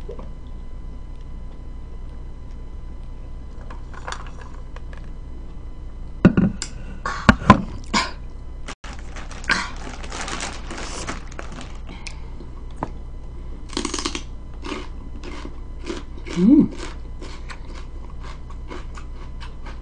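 Close-miked eating noises: a few loud knocks and clicks, a couple of seconds of rustling noise, then a run of crisp crunching clicks from chewing raw celery, with a short hum partway through.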